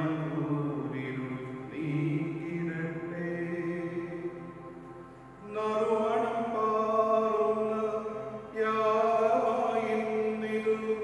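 A man's voice chanting a Malayalam liturgical text into a microphone in long, held notes, with short breaks between phrases about five seconds in and again near the end.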